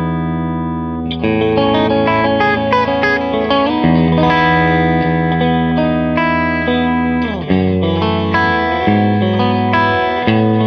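Electric guitar played through a Klon-style overdrive pedal: mildly driven chords left to ring, with a new chord struck about a second in, melodic fills moving over the sustained chord, and another chord change about three quarters of the way through.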